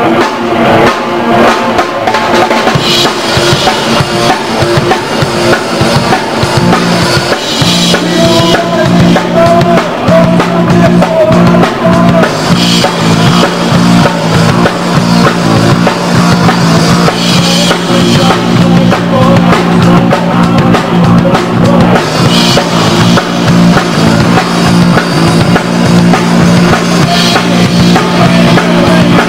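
Live rock band playing loud: a drum kit keeping a steady beat under electric guitars.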